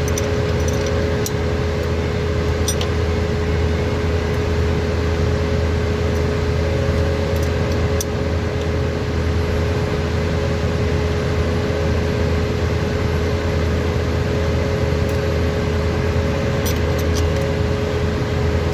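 Steady hum of running machinery, a low drone with a constant mid-pitched tone, with a few light clicks scattered through it.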